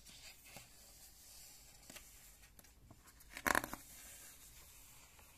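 A picture book's page being turned by hand: one short papery swish about three and a half seconds in, with faint room tone and a couple of soft ticks around it.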